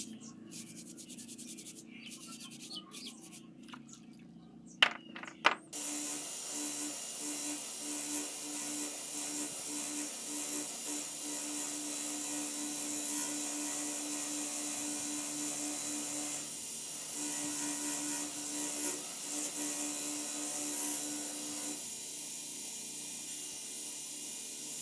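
Hands scrubbing a plastic shower head in soapy water with short scratchy strokes, then two sharp knocks about five seconds in. After that a pedestal grinder's wheel spins with a steady hiss and a motor hum as a brass shower fitting is held against it to clean off rust and grime.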